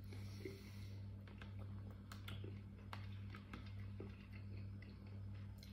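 Faint, scattered clicks and scrapes of a metal spoon against a plastic soup container, over a steady low hum.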